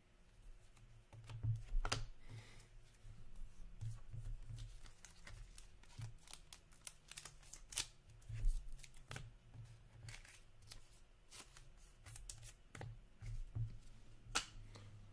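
Trading cards being handled at a table: scattered light clicks, taps and rustles of cards and card holders being moved, with no regular rhythm.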